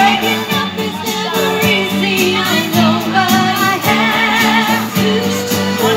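A woman singing into a microphone, with a wavering vibrato on held notes, accompanied by an acoustic guitar.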